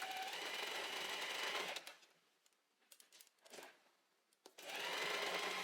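Domestic sewing machine stitching jersey fabric at a steady speed, stopping after about two seconds, then running again near the end after a pause with a few faint clicks.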